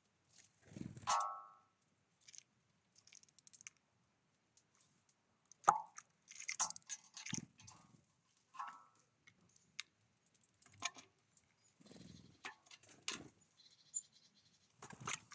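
Birds feeding at a feeder: irregular taps, knocks and crunches of pecking and seed-cracking, with a few short calls.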